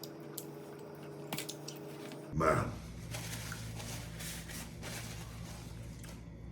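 A man chewing a chicken wing close to the microphone, with a few small clicks in the first two seconds.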